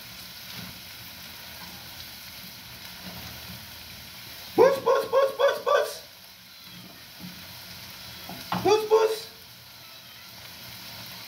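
Sausages sizzling in a frying pan, a steady hiss. A high voice breaks in twice, louder than the sizzle: a run of five quick short notes about halfway, and one brief rising call later.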